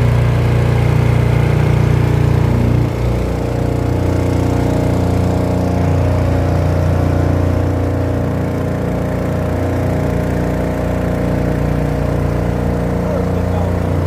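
Boat's outboard motor running steadily; its note drops slightly about three seconds in, then holds.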